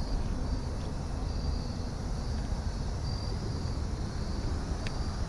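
Insects, likely crickets, calling in short, evenly repeated high-pitched trills over a steady low rumble.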